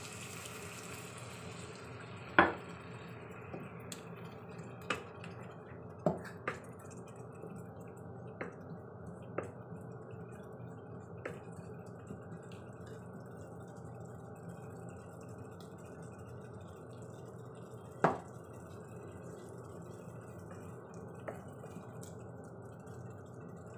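Spice paste and tempeh in an electric wok sizzling as water is poured in, the hiss dying down within the first few seconds into a low simmer with small pops. A wooden spatula knocks against the pan several times, sharpest about 2, 6 and 18 seconds in.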